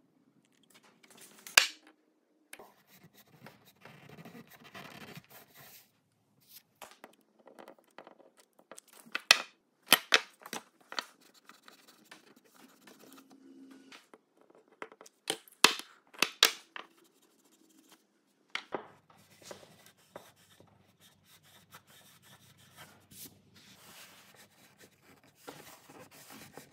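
Sharp clicks and knocks from handling a hot glue gun over a wood board, clustered in two groups in the middle, then a chisel blade scraping hardened black hot glue flush with the board's surface through the last several seconds.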